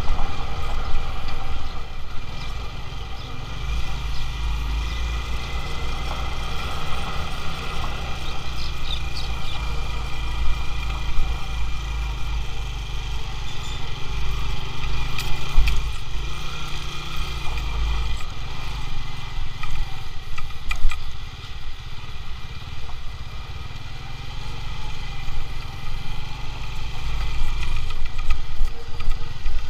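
Small motorcycle engine running as the bike is ridden slowly over a rough, rutted dirt track, with a steady low rumble and a few sharp knocks from the bumps around the middle.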